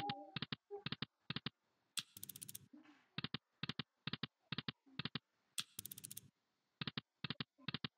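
Online video slot's sound effects: a run of short clicks as the reels spin and stop, spin after spin, with a brief brighter burst every few seconds as a new spin starts.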